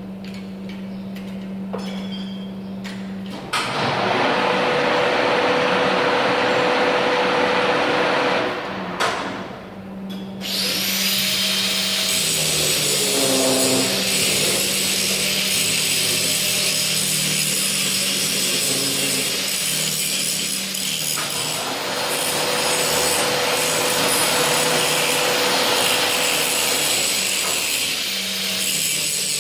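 Angle grinder running with its motor humming steadily, its disc grinding against a welded steel box frame in two long stretches: from about three and a half seconds to about eight and a half, and again from about ten and a half seconds on.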